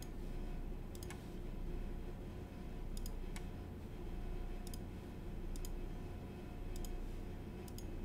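A few scattered clicks at a computer, some in quick pairs, over a low steady hum.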